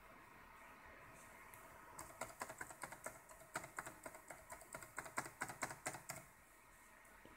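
Laptop keyboard keys on the numeric keypad tapped in a quick run of plastic clicks, starting about two seconds in and stopping about four seconds later.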